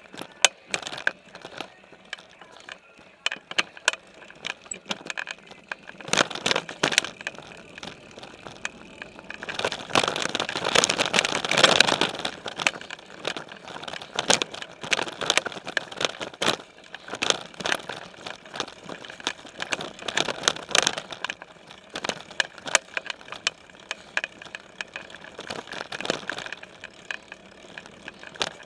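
Specialized Stumpjumper mountain bike rolling along a dirt trail, picked up by a camera mounted on its frame: frequent sharp clicks and rattles from the bike, with a louder stretch of rushing noise from about ten to twelve seconds in.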